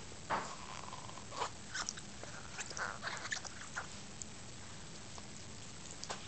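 A small dog chewing and gnawing on a rubber toy bone: short bursts of biting and mouthing noises, mostly in the first four seconds, then quieter.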